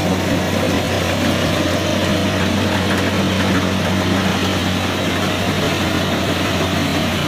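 Kubota DC-70 Plus rice combine harvester running steadily while harvesting, its diesel engine giving a constant low hum under a dense mechanical noise from the cutting and threshing gear.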